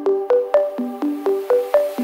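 Background electronic music: a repeating synth pattern of short plucked notes, about four a second.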